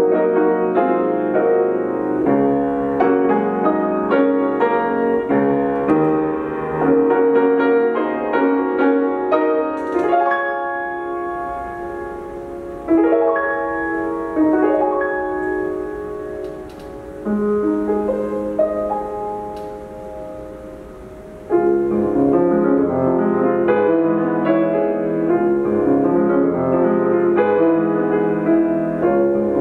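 Solo grand piano playing. A full, busy passage of chords gives way about ten seconds in to a softer stretch of held chords left to ring and fade, and dense playing returns about two-thirds of the way through.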